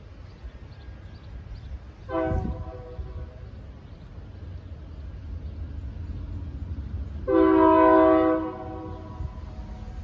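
Diesel locomotive air horn from a GE B23-7 sounding twice: a short blast about two seconds in and a longer, louder blast of about a second near the end. Under it, the steady low rumble of covered hopper cars rolling past on the rails.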